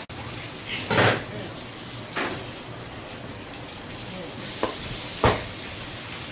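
About four sharp knocks over a steady hiss, the strongest about a second in and about five seconds in: a mallet striking the spine of a knife set across a Spanish mackerel's neck, driving the blade through the fish.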